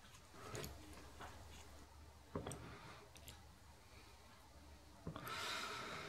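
Faint clicks and light metallic ticks of an Allen key turning a small socket-head screw in the steel slide of a lathe slotter. A short rustling scrape comes near the end.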